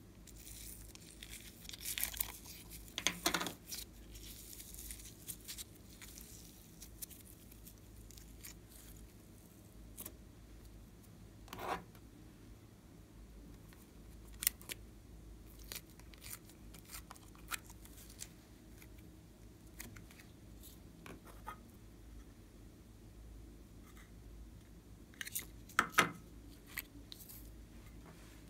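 Hands handling glitter slime and small plastic slime tubs: scattered light clicks and taps, with a few louder crackly handling noises a few seconds in, once around the middle and again near the end.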